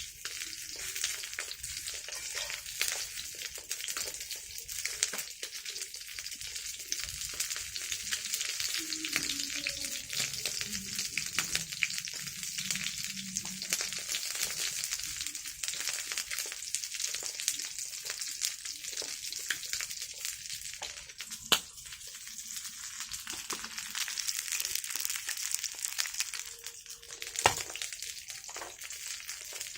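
Food sizzling and crackling in hot oil in a frying pan, a steady hiss. Two sharp clicks stand out, about two-thirds of the way in and near the end.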